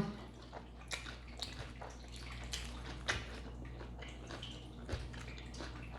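A person chewing a mouthful of salad: irregular wet crunches and mouth clicks.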